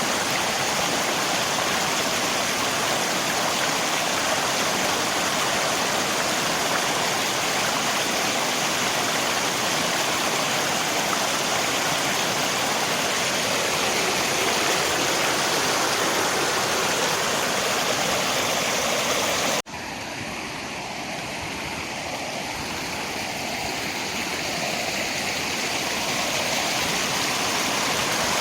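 Steady rushing of river water with rain. About two-thirds of the way through it cuts off for an instant at an edit, comes back quieter and gradually swells back up.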